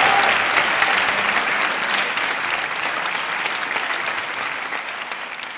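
Audience applause, many hands clapping, gradually dying away.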